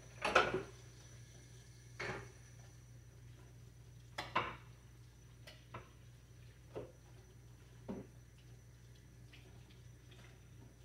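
Kitchen utensils and dishes clattering: a handful of separate knocks and clinks, the loudest about half a second in and another around four seconds in.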